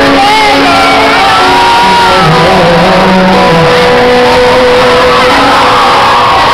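Loud live pop band music, with long held notes over the band and audience shouting.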